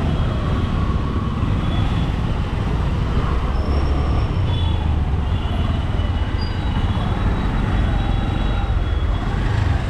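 Steady road traffic noise heard while cycling through city streets, under a constant low rumble of wind on the microphone. A few faint, short high tones come and go.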